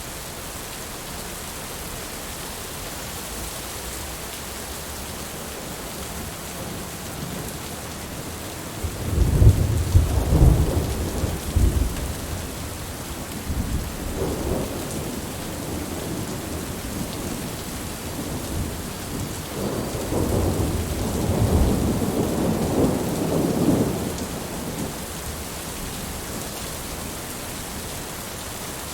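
Steady rain falling, with rolling thunder rumbling over it: one loud roll about a third of the way in and a longer, gentler roll about two-thirds in.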